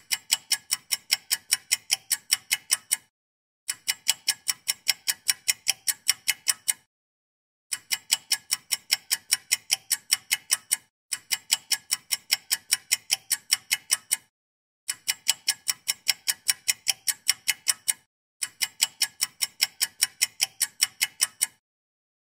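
Clock-like ticking sound effect: quick, evenly spaced ticks, about five a second, in six runs of about three seconds each, with short dead-silent gaps between them.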